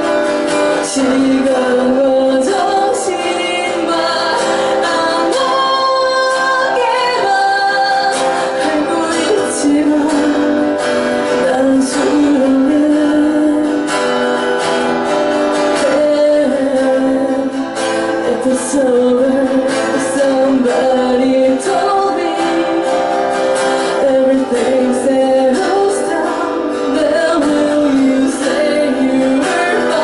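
A woman singing a song while strumming an acoustic guitar, performed live through a microphone.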